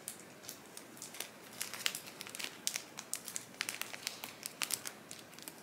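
Moss-filled plastic zip-top bag crinkling in quick, irregular crackles as hands press and fold it around a plant stem.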